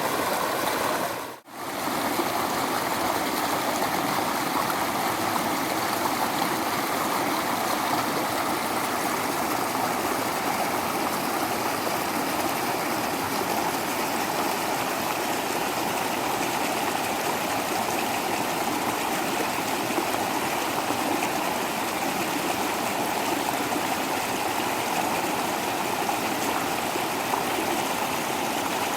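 Waterfall water rushing in a steady, even roar. The sound drops out for a split second about a second and a half in, then carries on unchanged.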